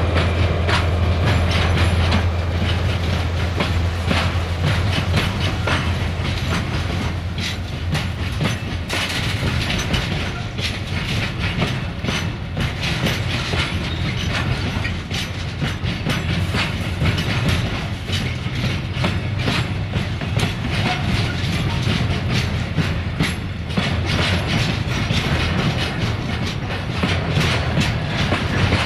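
Freight train wagons rolling past: a steady clickety-clack of wheels over rail joints, with irregular knocks and rattles. A low drone is strongest in the first couple of seconds and then fades under the wheel noise.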